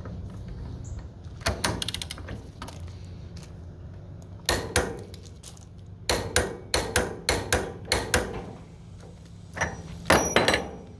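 Sharp metallic knocks and clanks from a torque wrench and clutch holding tool on the TAPP clutch's 1 9/16 in nut as it is torqued to 130 foot-pounds. A run of about seven knocks comes in the middle, and a loud ringing clang near the end.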